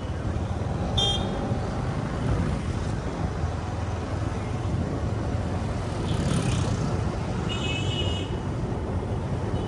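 Road traffic noise heard from a vehicle moving along a town street: a steady low rumble of engines and tyres, with short high beeps about a second in and again near the end.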